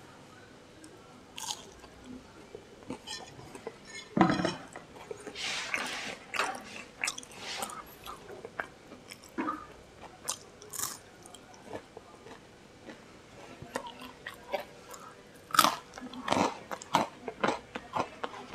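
A person biting and chewing crispy fried food with the mouth open to the sound, in irregular crunchy bites, the loudest about four seconds in and again near the end.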